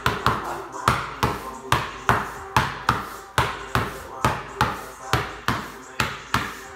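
Basketball dribbled hard on a concrete garage floor in a steady crossover rhythm, a little over two bounces a second. Each bounce has a short ringing echo.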